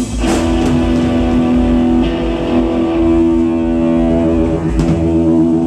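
Live rock band's electric guitar and bass guitar playing through amplifiers, with long held notes ringing; the low end thins out about five seconds in.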